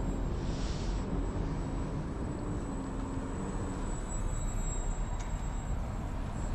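Electric motor and propeller of a Twisted Hobbys Madbull, a small foam 3D RC plane, buzzing as it flies low, over a steady low rumble.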